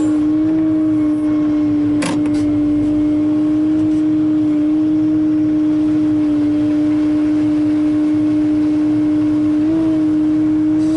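Excavator engine and hydraulics running with a loud, steady hum that rises slightly in pitch near the end, with a single sharp knock about two seconds in.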